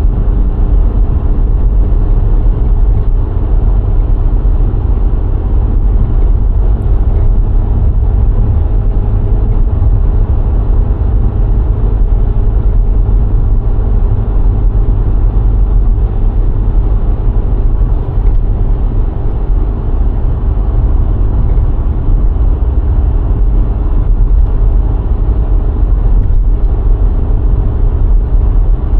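VW Golf IV 1.6 four-cylinder petrol engine and tyre and road noise while driving at a steady speed: a steady low rumble with an even engine hum that holds its pitch.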